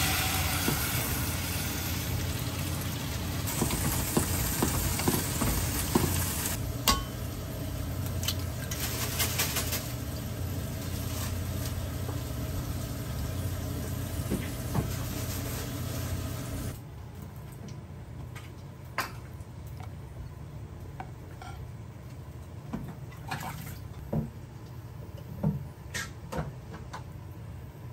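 Water poured from a glass measuring jug into a stainless-steel pot of rolled oats, followed by a steady hiss. About two-thirds of the way through, the hiss cuts off and light clicks and taps of kitchenware follow.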